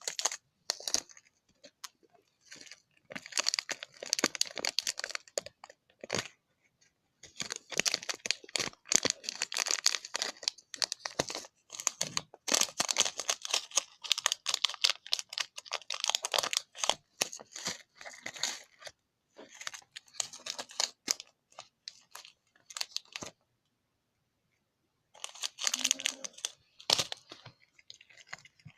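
Glue with sequins being stirred in a plastic container: crackly, sticky scraping in bursts with short pauses.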